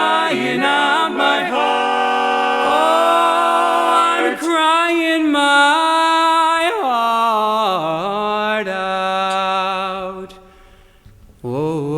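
Barbershop quartet singing a cappella in four-part close harmony, holding long sustained chords with sliding pitch changes at the end of the song. The voices break off about ten seconds in, then come back in a second and a half later on lower notes.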